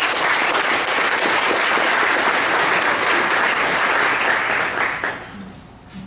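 An audience applauding after a talk, the clapping dying away about five seconds in.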